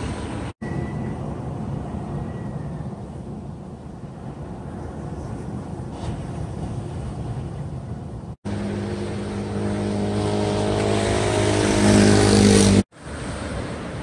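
Steady rush of wind and surf for about eight seconds. Then a motor vehicle's engine hum rises steadily in level for about four seconds, as if approaching, and cuts off abruptly.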